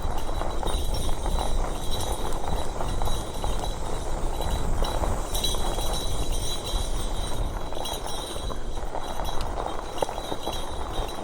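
Wind buffeting the microphone and rolling noise while riding a NAKTO Folding Ox folding e-bike, a steady low rumble with a faint high whine that comes and goes.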